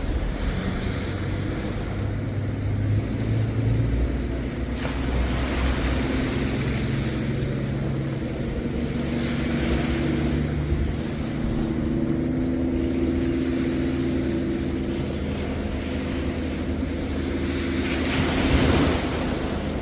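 Waves washing onto a beach in swells, the loudest near the end, over a steady engine hum whose pitch shifts slightly.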